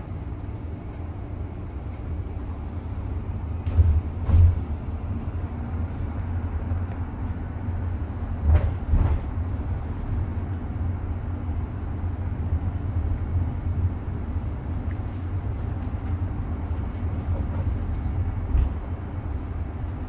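Steady low rumble inside a bus's passenger cabin, with a few short knocks and thumps: a pair about four seconds in, another pair about nine seconds in, and one near the end.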